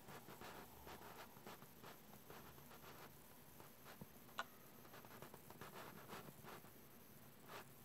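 Near silence with faint, irregular soft ticks and rustles and one sharper click about four and a half seconds in, as an upper-arm blood pressure monitor's cuff slowly lets its air out during a reading.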